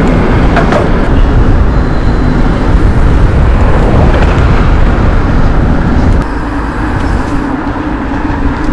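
Mountain bike descending a rough dirt trail at speed: wind rushing over the mic, with tyre noise and the bike rattling and clattering over bumps. The low rumble eases about six seconds in.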